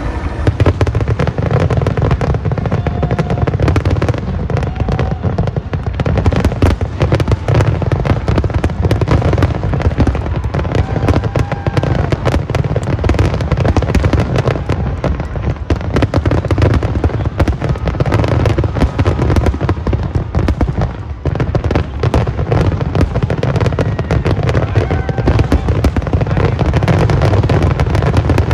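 A rapid, continuous barrage of fireworks: bangs and crackle overlap with no break, easing only briefly about two-thirds of the way through.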